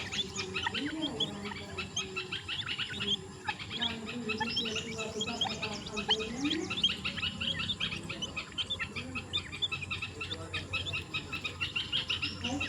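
A brood of titar (francolin) chicks peeping continuously: many rapid, high chirps overlapping without a break.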